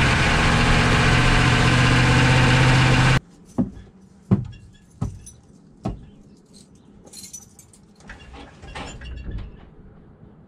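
The truck's engine and spinning torque converter running loud and steady, heard from a camera right at the open bell housing of its 4L80E automatic transmission. About three seconds in the sound cuts off abruptly, followed by four sharp knocks a little under a second apart and faint light clatter.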